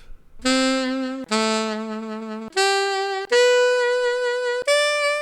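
Sampled alto saxophone from a SoundFont played on a software sampler: five separate held notes, the first two low, then three stepping upward in pitch, the last one held.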